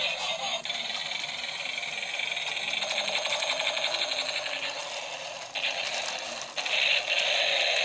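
Battery-operated toy tank's small electric motor and plastic gears buzzing and rattling as it drives and changes between tank and robot form. The sound shifts and grows louder about five and a half seconds in and again about a second later.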